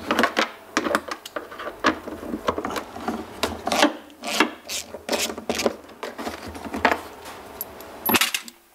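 Hand tools working the bolts of a Polaris RZR's CVT transmission cover: irregular metallic clicks and clinks, a few a second, as the cover bolts are undone.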